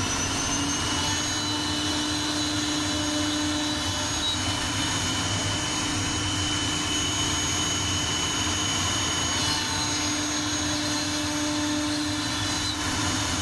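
CNC router spindle running steadily with a high whine as a Beast roughing bit cuts through plywood at a fast 600 inches per minute feed.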